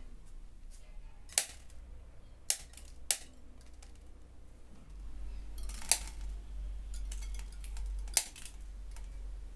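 Sharp electric spark cracks from a homemade high-voltage mosquito zapper's copper wire grid: five snaps at irregular intervals. A low hum runs underneath and grows louder about halfway through.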